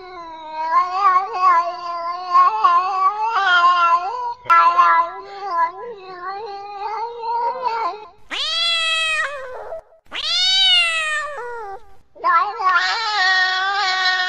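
Female cat in heat yowling: long, wavering calls. Two shorter calls that rise then fall come about eight and ten seconds in, followed by another long yowl.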